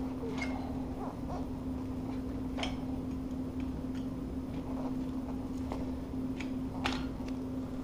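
A knife blade prying under the edge of a vinyl floor plank: scattered light clicks and scrapes, the sharpest about two and a half and seven seconds in, over a steady hum.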